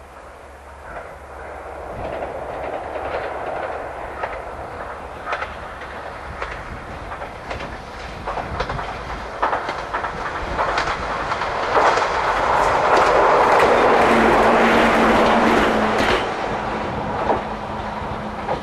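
Ichibata Electric Railway electric train approaching and running past, wheels clicking over the rail joints. It grows louder and is loudest a few seconds before the end, with a steady hum under the clicking, then drops off suddenly.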